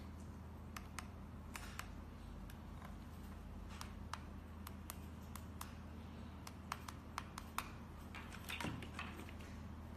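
Small plastic keys on a handheld wireless tour-guide transmitter and receiver being pressed to step the volume setting. The presses make an irregular series of sharp little clicks over a steady low hum, with a brief handling rustle near the end.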